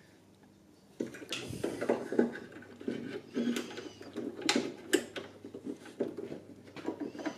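Small door-handle parts clicking, rattling and knocking against the metal of a BMW E24 door as gloved hands work them into place, in irregular bursts that start about a second in.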